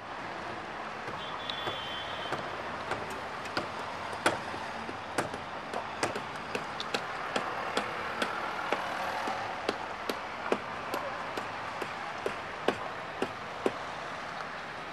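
Steady rush of a line of cars on a mountain highway heard from a distance, with irregular sharp clicks about once or twice a second, some much louder than others.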